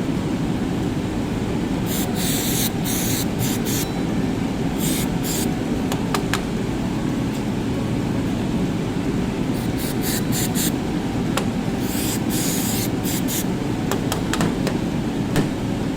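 Short hissing spurts of aerosol electrical contact cleaner sprayed onto a dirty brake light switch and its connector, several bursts with pauses between, over a steady low rumble.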